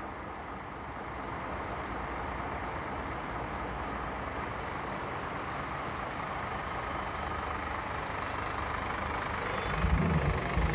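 Large Scania coach running at idle: a steady, even mechanical noise with no beat or change. A louder burst of music comes in near the end.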